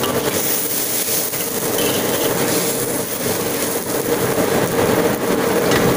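Steady loud noise of a blower fan running, with a wok of spice sauce boiling under it.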